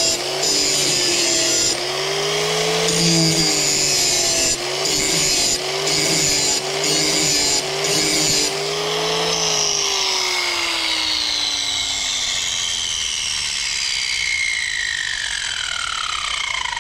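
Corded hand-held angle grinder dressing the edge of a thick commercial mower blade clamped in a vise, in several short grinding passes. Its motor is then switched off about nine seconds in and winds down with a falling whine.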